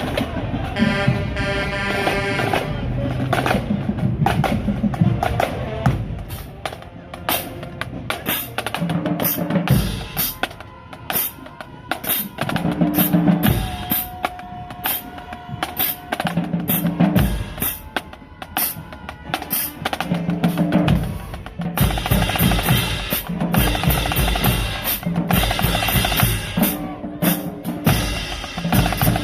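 High school marching band drumline playing a cadence: snare drums, bass drums and cymbals in a steady rhythm, after the horns' last chords fade in the first seconds. The drumming grows busier and louder toward the end.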